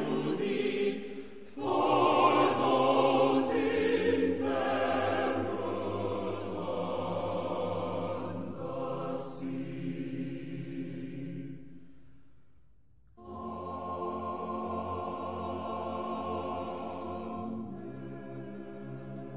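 Choral music with long held notes; it fades away about twelve seconds in and a new passage begins a second later.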